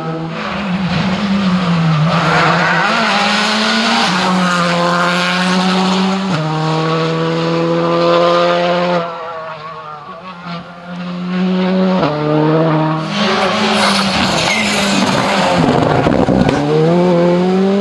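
Škoda Fabia rally cars at full speed on a stage, engines revving up and dropping back through quick gear changes, with tyre noise on the road. There is a quieter stretch around ten seconds in.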